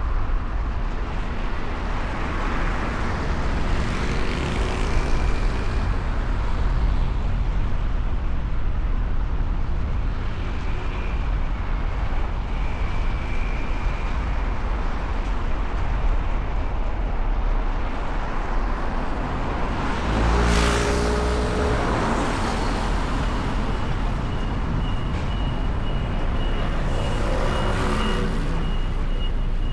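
Steady city street traffic, with engines running and vehicles passing. About two-thirds of the way through, a louder pitched vehicle sound passes, and shortly after a thin, steady high tone starts and carries on.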